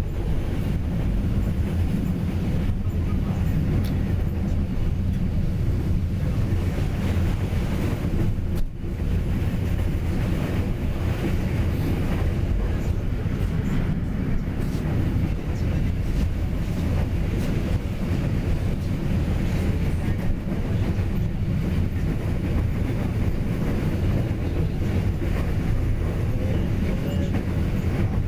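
A train running steadily along the track: a continuous low rumble of wheels and rails, dipping briefly about nine seconds in.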